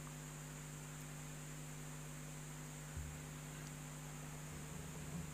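Steady low electrical hum with a faint high hiss; a soft low thump about three seconds in and a few fainter ones near the end.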